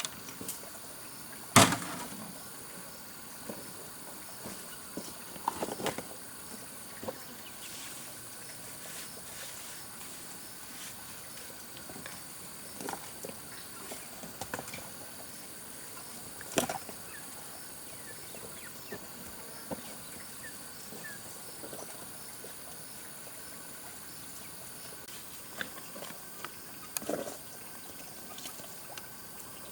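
Scattered sharp knocks and clicks a few seconds apart, the loudest about a second and a half in, over a steady high thin whine that breaks off now and then.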